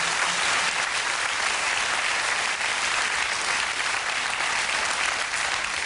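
Studio audience applauding steadily, easing off near the end.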